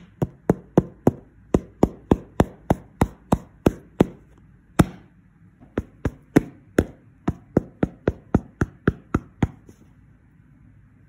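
Fingernails tapping on a Mod Podge-sealed painted panel on the back of a fabric coat: sharp, even taps about three a second, with a short pause about five seconds in. The tapping stops about a second and a half before the end.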